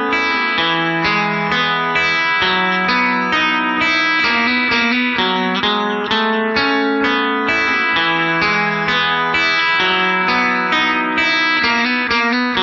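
Music: a plucked guitar picking out a quick, steady run of notes, about four a second.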